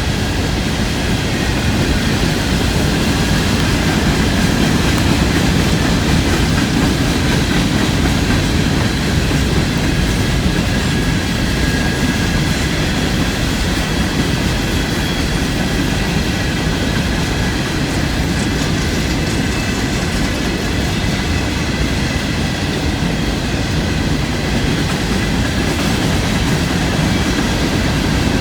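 Empty coal cars of a CSX freight train rolling steadily past, a continuous rumble of wheels on rail with faint steady high-pitched tones over it.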